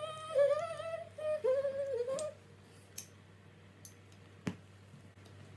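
A woman humming a short wavering phrase for about two seconds, the pitch stepping up and down, followed by a few faint clicks.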